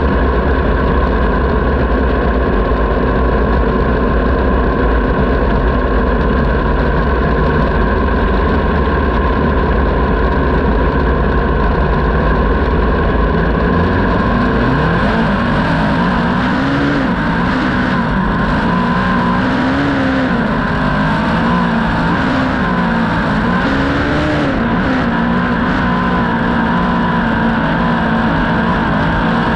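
Speedcar engine heard on board, loud and running steadily at first. From about halfway its pitch rises and falls again and again as the throttle is opened and closed on track.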